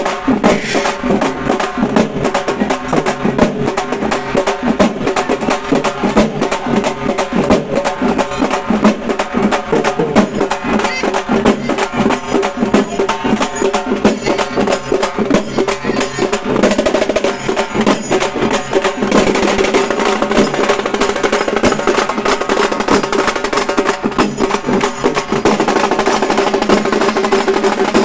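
Halgi frame drums struck fast with sticks in a dense, driving rhythm over a steady held note, the playing growing a little fuller and louder about two-thirds of the way through.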